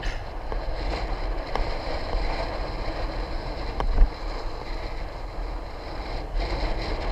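Wind buffeting the microphone over a steady rumble of tyres on the road while riding, with one sharp knock about four seconds in.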